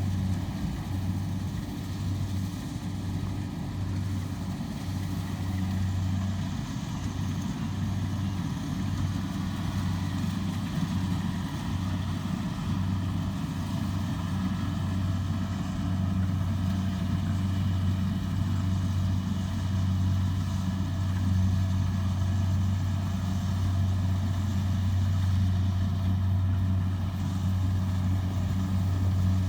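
Kubota DC70 combine harvester's diesel engine running steadily with a constant low hum, getting slightly louder toward the end.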